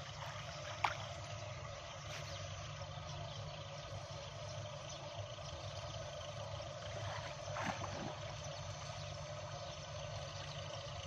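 Shallow canal water sloshing and splashing as a man wades and gropes with his hands in the mud for tilapia, over a steady low rumble and hiss. A sharp click comes about a second in, and the splashing is loudest around three-quarters of the way through.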